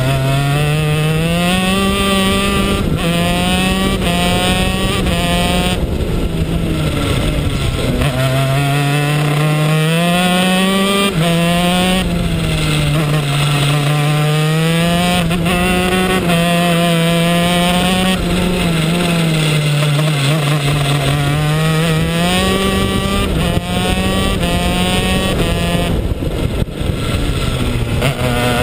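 A 125cc two-stroke shifter kart engine is running hard through a lap. Its pitch climbs steadily and then drops back sharply, again and again, as it shifts up and as it slows and accelerates through the corners.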